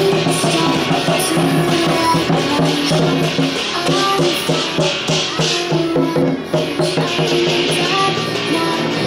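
Lion dance music: a drum and clashing cymbals beating steadily, with a stepping melody over them.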